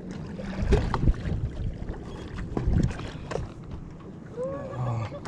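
Wind rumbling on the microphone over lapping water at the shore, with scattered small knocks and clicks. A brief wavering pitched sound comes near the end.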